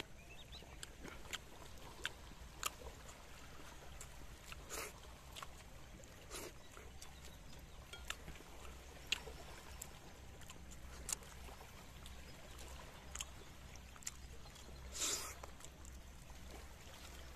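Quiet shoreline ambience with a steady low rumble of wind and lapping water, broken by scattered small clicks and smacks of eating from metal plates and a wok, and one louder brief rustle about fifteen seconds in.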